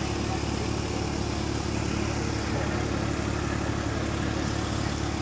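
Eicher tractor's diesel engine running steadily under load, towing a heavy trailer.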